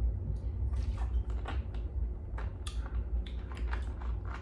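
Plastic drink bottle being drunk from and its cap twisted back on: a run of small, irregular plastic clicks and creaks over a steady low hum.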